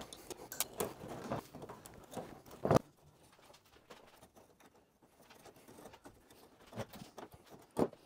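Hands working stitch wire through holes in thin plywood kayak panels: light clicks and rustles, a sharper knock a little under three seconds in, then quieter with two more knocks near the end.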